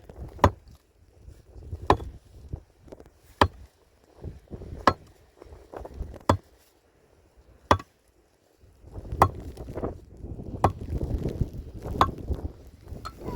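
Chopping: nine sharp, evenly spaced strikes, about one every second and a half. From about nine seconds in, a steady rustling noise runs beneath them.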